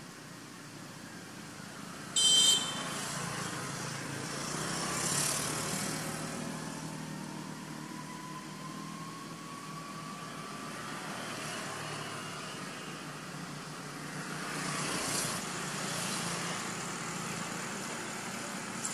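Vehicles passing on a road, two of them swelling and fading by, with an engine tone rising slowly in between. A brief high-pitched call about two seconds in is the loudest sound.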